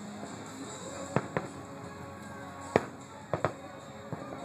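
Fireworks bursting: about six sharp bangs at uneven intervals, a close pair about a second in, the loudest near the middle, then another close pair, over background music.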